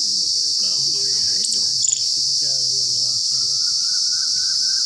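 A steady, high-pitched insect chorus, with faint voices underneath.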